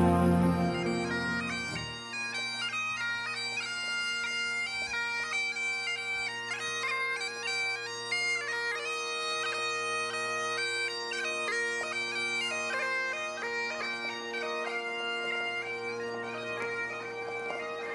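Bagpipes playing a tune. A melody moves from note to note over steady, unbroken drones. Other music fades out about two seconds in, and the pipes carry on after that.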